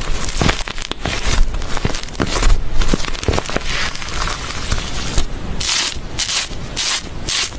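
Slime with chocolate-sprinkle add-ins being squeezed, poked and stretched by hand, giving a dense run of small clicks and pops. Near the end come several short hissing bursts, a few a second, as it is pressed flat.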